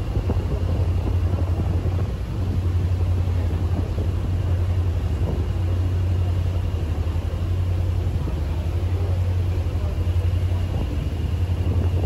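A ferry's engine drones steadily with a deep, constant hum, over a hiss of churning wake water.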